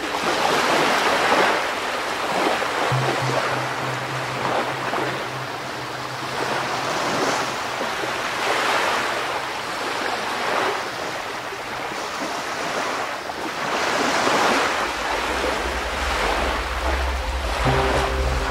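Ocean surf washing in waves that swell and fall every few seconds, under soft background music with low held notes.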